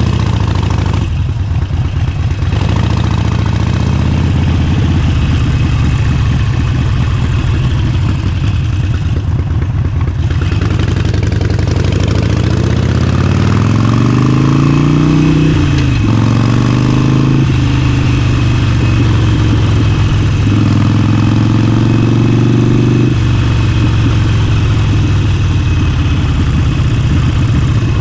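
Harley-Davidson Forty-Eight's air-cooled V-twin running while riding, heard raw with no music. About halfway through the engine note climbs as the bike accelerates, drops, then holds fairly steady with small changes in throttle.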